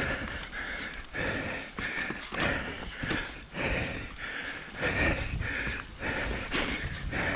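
Mountain bike descending a dirt forest trail: tyres rolling and the bike rattling and knocking over roots, with low wind rumble on the microphone and the rider breathing hard in quick, repeated breaths.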